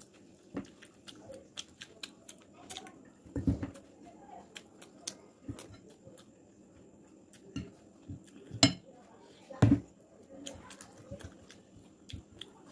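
Fingers mixing rice and chicken curry in a glass bowl: soft sticky squelches and scattered small clicks, with a few louder thumps, the loudest about nine and ten seconds in.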